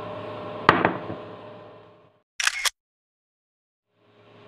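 A plate knocks down on a counter with a sharp clack, then the room sound fades out to silence. In the silence, a camera-shutter sound effect clicks twice, quick and bright.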